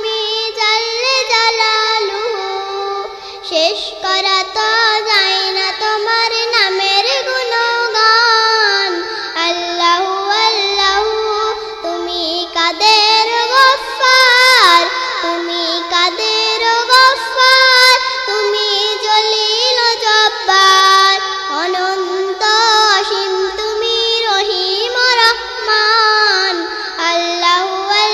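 A young girl sings a Bengali Islamic hymn in praise of God (a hamd gojol) solo, in long ornamented phrases whose pitch bends and wavers.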